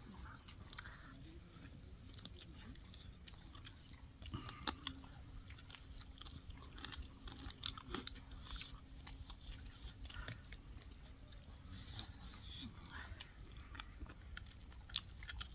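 Faint chewing and biting on chicken lollipops, with irregular small clicks and smacks from the mouth and the meat.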